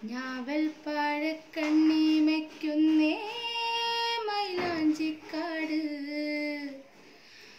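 Unaccompanied singing by one high voice, holding long drawn-out notes. About three seconds in it steps up to a higher held note, then glides back down a second later.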